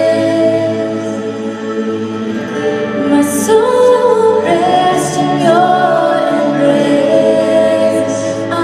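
Live worship band playing a slow song with a singer holding long notes.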